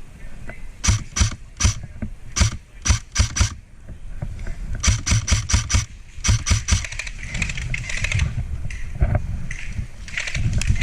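Airsoft guns firing: a string of single shots, about seven over the first three and a half seconds, then quicker runs of shots about five and six seconds in, with a couple more near the end.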